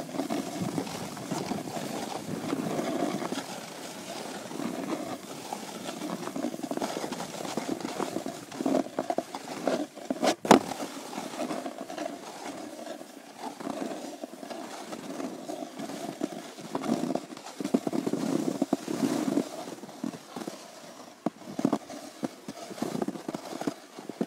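Edges sliding down a packed, groomed snow slope, a continuous uneven scraping and hissing that swells and fades with the turns. One sharp knock about ten seconds in.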